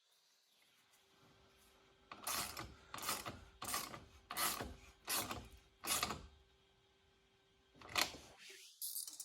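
Socket ratchet clicking through about six strokes, roughly one every two-thirds of a second, as it tightens a hose clamp on turbo boost piping. A single sharp knock follows near the end.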